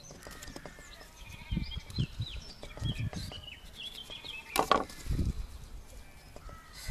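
Knife cutting into a pollack on a wooden chopping board while it is gutted, with several dull knocks of the blade and hands on the board. Birds chirp in the background, and one short sharp sound stands out about two-thirds of the way through.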